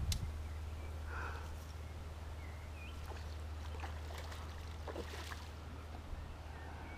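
Steady low rumble of wind on the microphone, with faint splashing about five seconds in from a hooked trout thrashing at the landing net.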